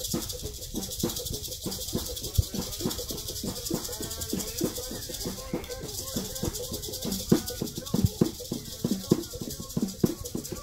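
Hand rattles (maracas) shaken in an uneven rhythm with sharp knocks, over a steady high hiss, with a voice heard briefly about four seconds in.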